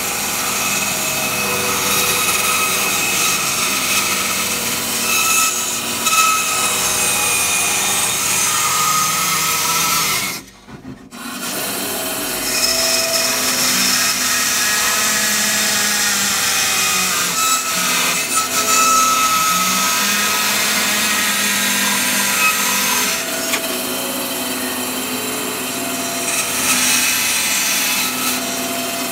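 Benchtop bandsaw running and cutting a .50 caliber brass cartridge case held in an oak V-block jig, with a changing whine as the blade works the cut. The sound drops away sharply for about half a second about ten seconds in.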